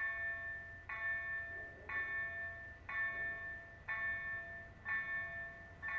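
EDG-2 electronic warning gong of a railway level crossing, striking about once a second, each bell-like tone ringing and fading before the next. It sounds while the crossing's barriers are down for an approaching train.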